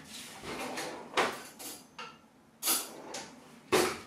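A few short scrapes and knocks of things being handled, about a second apart, the loudest near the end.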